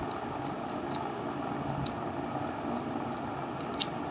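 A few scattered sharp plastic clicks of a Rubik's cube's layers being turned, the loudest just before the end, over a steady background hiss.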